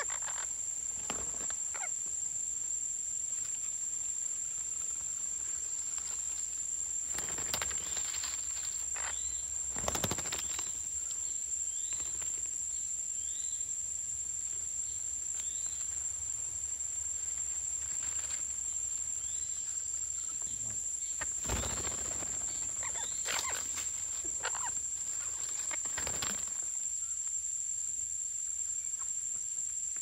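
Steady, high-pitched insect drone, with a series of faint short bird chirps a third of the way in and a few brief sharp sounds scattered through.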